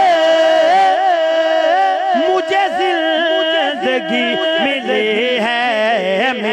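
A man singing an Urdu naat into a microphone, holding one long, wavering note. About two seconds in it turns into a run of shorter, ornamented notes at a lower pitch.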